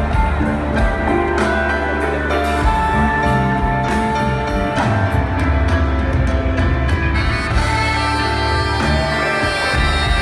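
Rock band playing live, heard from the audience: an instrumental jam with regular drum strokes, a heavy bass line, electric guitar and keyboards, with no singing.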